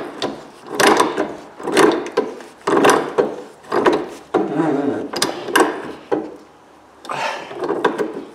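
Pipe wrench unscrewing a corroded brass ball valve body held in a vise: a scraping metal grind about once a second as each short stroke turns the threads and the wrench is swung back for a fresh bite. The threads are corroded and tight all the way out.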